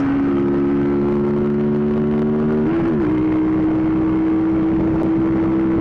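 2007 Honda CBR125's single-cylinder engine running steadily while riding, with wind noise. About three seconds in its note wavers briefly, then holds steady at a slightly lower pitch.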